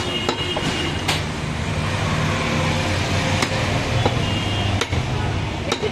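Butcher's cleaver chopping beef on a wooden log chopping block: several sharp knocks at irregular spacing, over a steady low motor hum.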